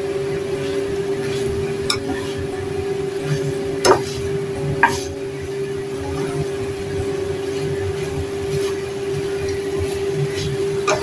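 Steel spatula stirring and scraping beef tendon frying in soy sauce in a wok, with a few sharp knocks of the spatula on the pan about two, four and five seconds in, over a steady hum.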